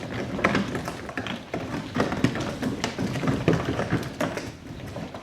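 Small wheels under a heavy jacuzzi, about 350 kilos, rolling over rough ground as it is pushed along. They give a continuous rattle of knocks and taps.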